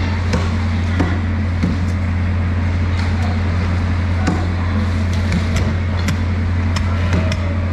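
A heavy cleaver chopping into a sailfish carcass, with sharp knocks at irregular intervals of about a second. Under it runs a steady low machine hum.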